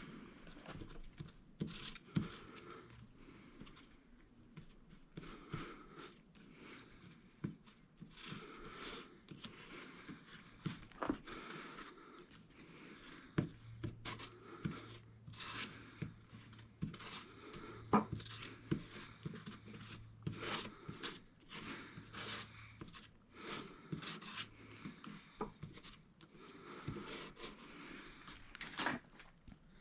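Faint scraping, rubbing and crinkling of hands-on work, likely a repair compound or its packaging being handled, with many small clicks. A low steady hum comes in around the middle and fades a few seconds later.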